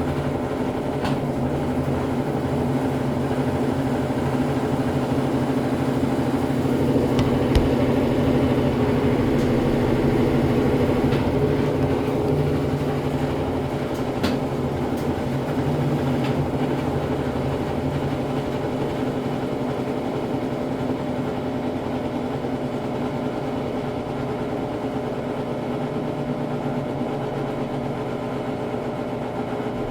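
Brastemp Ative 11 kg top-loading washing machine running steadily through an intermediate spin: a constant motor-and-drum hum with a few light clicks, easing slightly in loudness in the second half.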